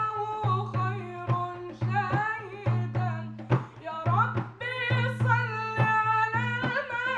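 A solo voice singing an Arabic devotional song in praise of the Prophet, with ornamented, sliding melodic lines over sustained low bass notes and regular drum hits.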